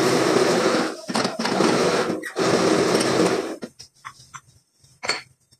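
Hydraulic press pump and ram working under load in three loud stretches of about a second each with short breaks between. Then a low steady hum and a few light metal clinks as steel blocks on the press are handled.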